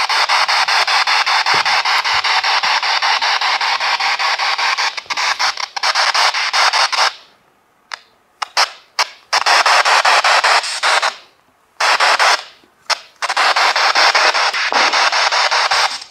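Ghost box (a radio that sweeps rapidly through stations) putting out loud, choppy radio static, which cuts out abruptly several times in the second half.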